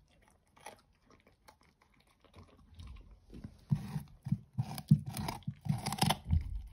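English cocker spaniel chewing a whole raw carrot: faint crunches at first, then loud, rapid crunching bites from about three seconds in.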